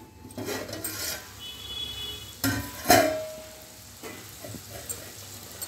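A steel lid is lifted off a cooking pot with a cloth and put down: a scrape and rustle, then two metallic clanks about half a second apart, the second one ringing briefly. The curry sizzles faintly in the pot underneath.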